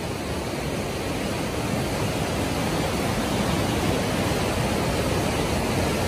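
Fast mountain river rushing over boulders in whitewater rapids: a steady, dense rush of water that grows slightly louder over the few seconds.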